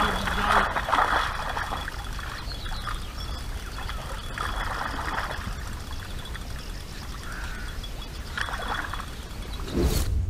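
A hooked asp splashing at the surface close to the bank as it is played on a spinning rod, in a few irregular bursts over a steady low rumble. Near the end a short loud whoosh comes, then the sound cuts off.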